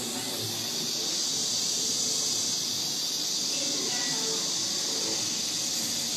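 Steady background hiss, brightest in the upper range, with no clear ring, buzz or knock standing out.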